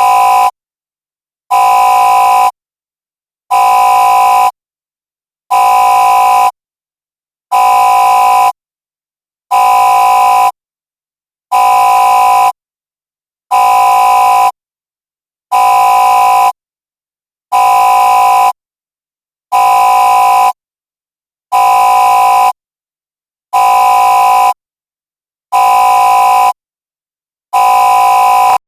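Intruder alert alarm sound effect: a harsh, steady-pitched buzzing tone sounding in blasts about a second long, one every two seconds, with silence between.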